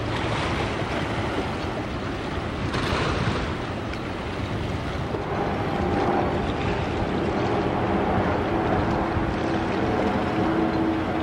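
Outdoor riverside ambience with wind buffeting the microphone. A steady mechanical hum joins about halfway through.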